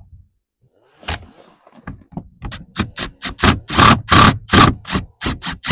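Ratchet wrench tightening a nut on a truck's side-mirror mount, in quick, even back-and-forth strokes about three times a second. The strokes grow louder in the second half.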